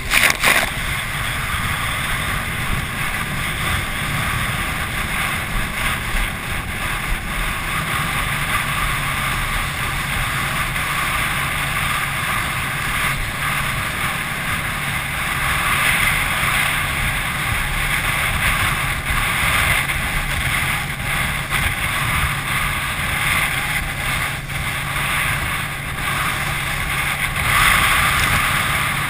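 A wakeboarder being towed across choppy lake water: a loud splash right at the start as the rider comes up out of the water, then steady rushing water and spray with wind buffeting the microphone. A faint steady drone from the tow boat's engine runs underneath.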